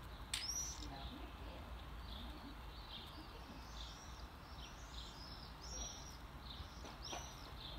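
Garden songbird chirping: a run of short, arched high notes repeated every half-second or so, with one sharper, louder note about half a second in, over a steady low outdoor hum.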